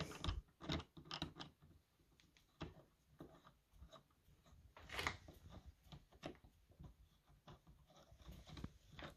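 Faint, scattered small metal clicks and light scraping from a driver working in the screw that clamps a cutter onto a steel shaft. The sharpest click comes about five seconds in.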